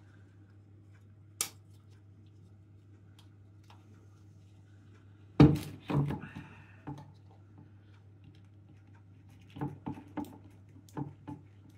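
Handling knocks and clicks from a small wooden Christmas countdown ornament as a paper pull-tab is worked out of it by hand. There is a sharp click about a second in, two louder knocks with a short scrape halfway through, and a few light taps near the end.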